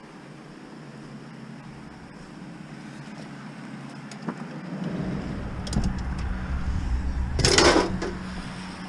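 Minivan's sliding side door being opened: a low rumble sets in about halfway through, followed near the end by a loud half-second rush of noise as the door runs back along its track.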